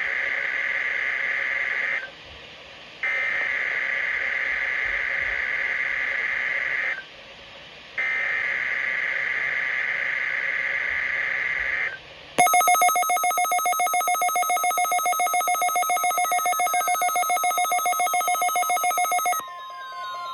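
NOAA Weather Radio SAME header data bursts: buzzy two-tone digital chirps sent three times with about a second's gap between them, marking the start of a Required Weekly Test. About twelve seconds in, a weather radio's pulsing electronic alert alarm sounds for several seconds. Near the end a steadier tone replaces it.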